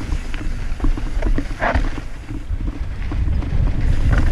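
Wind buffeting the microphone of a camera on a mountain bike going down a dirt singletrack, a loud uneven rumble, with scattered clicks and rattles from the bike and the trail.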